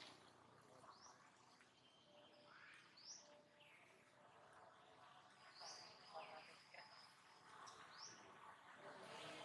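Faint bird chirps over a quiet outdoor background: short high calls scattered every second or two.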